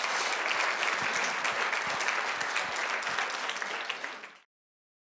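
Audience applauding at the end of a talk, a dense steady clatter of many hands, fading out sharply after about four seconds.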